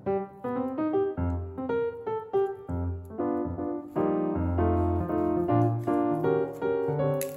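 Background piano music: a melody of notes over a bass line.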